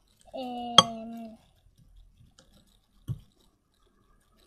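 A spoon clinks once sharply against a glass bowl of slime being stirred, over a drawn-out hesitant vowel from a girl's voice lasting about a second; a soft knock follows about three seconds in.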